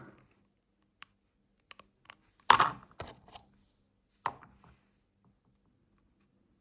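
A handful of sharp clicks and knocks from small tools working at the metal body of a Dupont Line 1 lighter, the loudest about two and a half seconds in, while a rubber seal stuck inside the gas valve hole is picked out.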